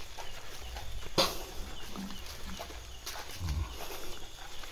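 Footsteps on a concrete path going uphill, with handling rumble on the microphone and a sharp click about a second in. Behind them a faint high chirp repeats steadily.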